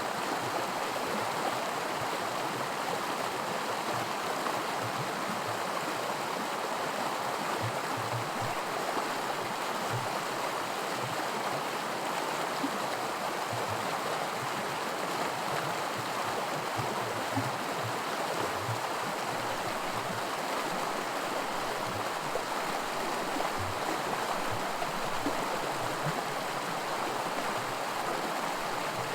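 Small creek rushing over a stretch of miniature white water: a steady splashing burble that holds even throughout.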